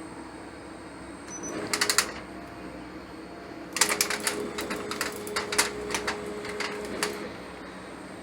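Hybrid stepper-servo motor driving a linear actuator axis through a gear pulley in a test move. A short move comes about a second and a half in, then a longer one of about three seconds, each a steady motor whine with a rapid clicking rattle over it.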